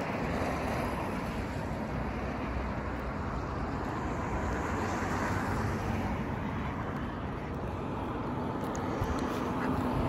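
Steady wind noise on the microphone over small waves lapping at the shore.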